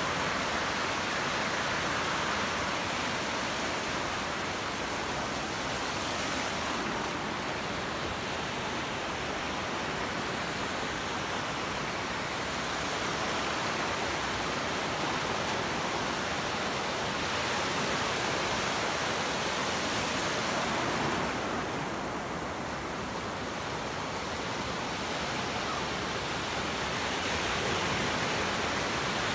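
Ocean surf breaking and washing up the beach: a steady rush of water that swells and eases, a little quieter for a few seconds past the middle.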